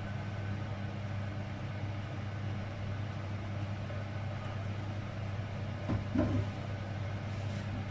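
Steady low machine hum with a brief knock about six seconds in.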